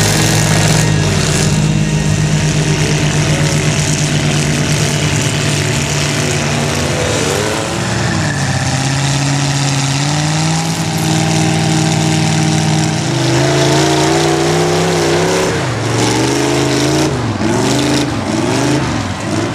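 Truck engines running hard under load, held at a steady pitch at first, dipping about eight seconds in, then revving up and down repeatedly in the last several seconds.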